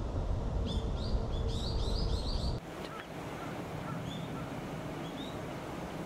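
Small birds calling: a quick run of high, short chirps for about two seconds, then a few scattered fainter chirps. Underneath is a low rumble that cuts off suddenly a little past halfway.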